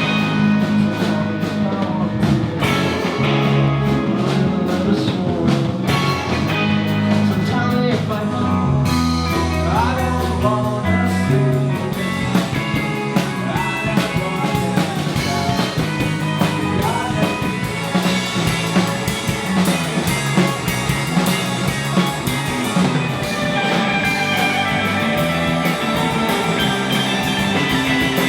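Rock band playing, with guitars and drums and singing at times.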